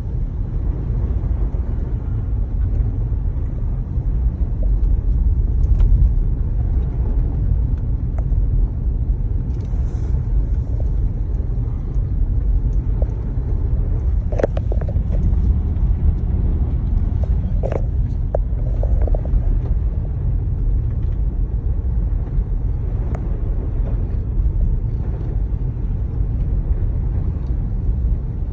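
Steady low rumble inside the cabin of a 2019 Jeep Grand Cherokee with the V6, driving through deep snow. A few short knocks and clicks come about halfway through.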